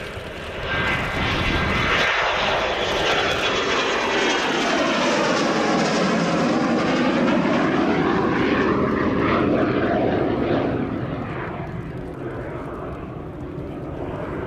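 Twin Honeywell TFE731 turbofans of a Textron AirLand Scorpion jet at takeoff power as it lifts off and climbs past. The jet noise swells about a second in, holds loud with a sweeping shift in tone, then fades near the end as the jet climbs away.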